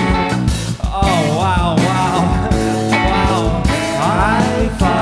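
Live rock band playing, with regular drum hits under sustained guitar and bass, and a lead line that bends in pitch twice, about a second in and again near the end.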